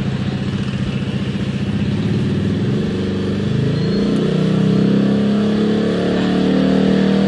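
Yamaha Mio 125S scooter engine running through a Yoshimura R11 two-hole exhaust with its silencer removed. It is revved up from a lower speed about three seconds in and held at high revs, measuring about 98.8 dB at two meters.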